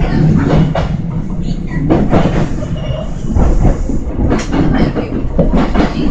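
Kintetsu electric train running along the track, with a steady low rumble and irregular wheel clicks and knocks over the rails.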